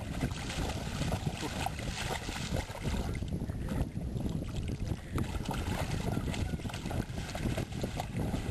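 A dog wading through shallow sea water, splashing and sloshing irregularly around its legs as it paws and noses for rocks on the bottom.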